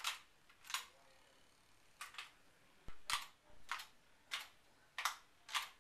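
Mini RC speedboat driven in short bursts on bathwater: about nine brief, irregularly spaced spurts of propeller and motor noise churning the water.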